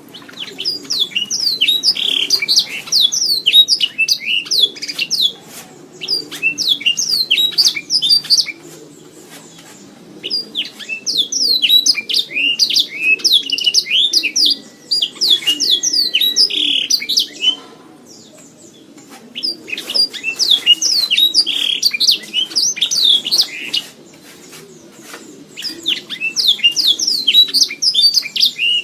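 Domestic canary singing its song in five bursts of rapid chirps and trills, separated by pauses of one to two seconds.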